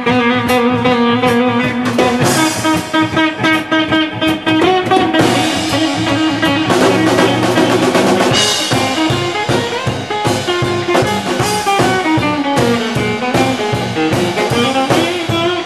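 Instrumental break of a live band: a guitar plays a melody line over a drum kit keeping a steady beat.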